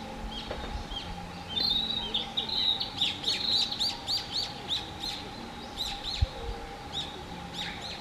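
A male narcissus flycatcher singing: runs of quick, high chirping and whistled notes, with one short thump a little after six seconds in.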